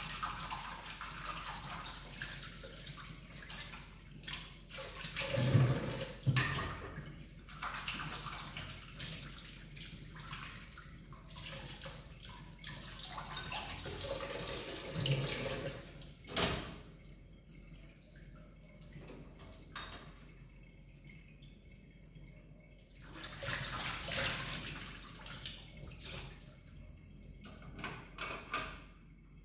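Tap water running and splashing into a stainless steel kitchen sink as dishes are washed, with sharp clinks of ceramic bowls and plates being handled and set on a rack. The water noise comes and goes, dropping away for several seconds past the middle before rushing again.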